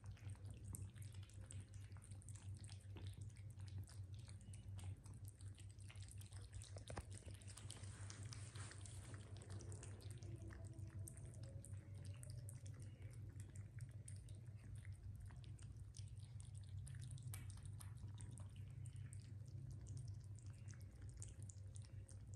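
Cats and kittens lapping a creamy liquid treat from bowls and a plate: many quick, faint wet clicks, over a low steady hum.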